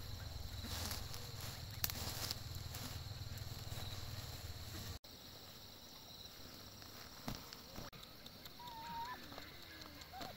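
Chickens clucking, with a few short calls near the end. A low steady rumble fills the first half and cuts off abruptly about halfway through.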